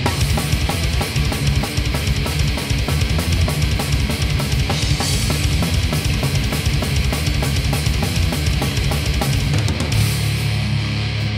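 Loud rock music with distorted guitar and a fast, steady drum beat.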